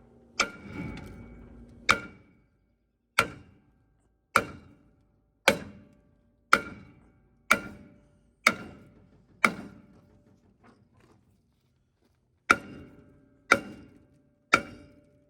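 Heavy hammer blows on a seized brake drum, about one a second, each strike ringing out briefly like struck metal, with a pause of a few seconds before three more. The drum is stuck fast and will not come off; the beating eventually cracks it.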